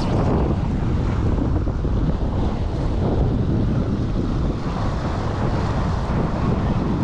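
Wind buffeting the microphone, with small waves washing and splashing against the jetty rocks underneath.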